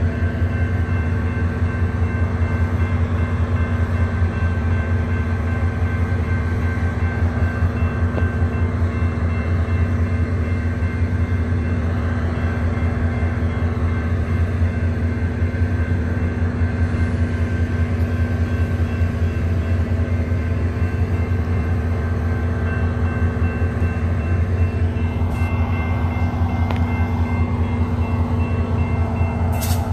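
SunRail diesel locomotive idling, a steady low engine drone that holds unchanged throughout, with a few faint steady high tones above it. A brief sharp click comes just before the end.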